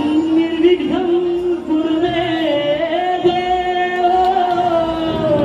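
Konkani devotional gan performed live: a singer holding long, wavering notes over steady instrumental accompaniment.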